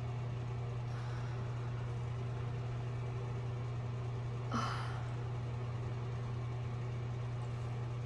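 A steady low mechanical hum, with one brief soft noise about four and a half seconds in.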